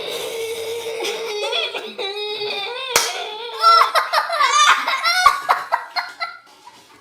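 A steady held tone for about three seconds, a sharp click, then a group of girls bursting into high-pitched giggling and laughter that fades near the end.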